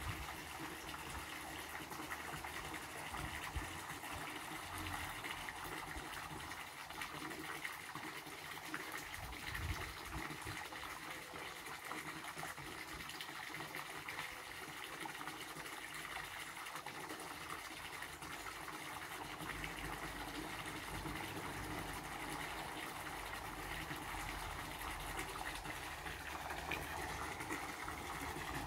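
Small garden-pond fountain jet splashing steadily back into the pond, a continuous trickling splash.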